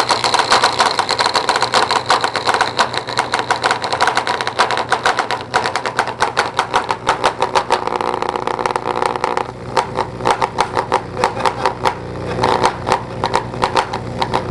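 Two Sundown E8 8-inch subwoofers driven straight from 120-volt wall-socket mains: a loud, steady buzz with a dense, rapid crackling rattle as the cones are pushed hard, on and on.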